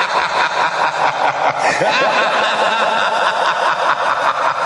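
Podcast intro theme: a loud, dense layer of rapid, evenly repeating pulses, with a run of short sliding tones about two seconds in.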